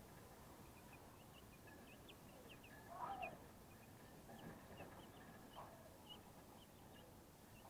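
Faint, scattered peeping of young broiler chicks, with one louder, lower sound about three seconds in.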